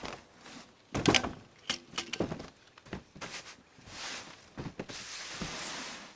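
A few sharp knocks and clatters about a second in and again near two seconds, then a rasping scrape lasting about two seconds, from work on a camper roof stripped of its old tar.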